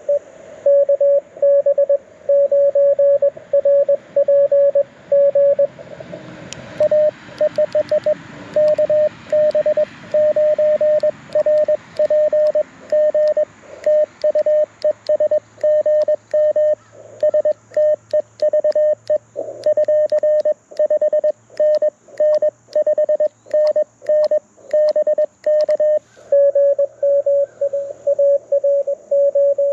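Morse code (CW) from a Mountain Topper MTR4B V2 QRP transceiver: a single mid-pitched tone keyed on and off in dots and dashes. A hiss of band static swells in the middle and then fades.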